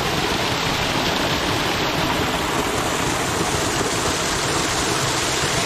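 Loud, steady rush of fast-flowing water.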